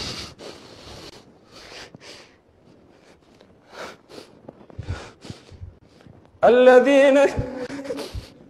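Weeping in a praying congregation: scattered sniffs and sobbing breaths, then, about two seconds before the end, a loud crying voice that wavers and shakes for about a second and a half.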